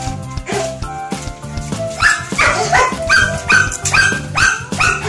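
A dog barking in a run of short barks, about two a second, over background music.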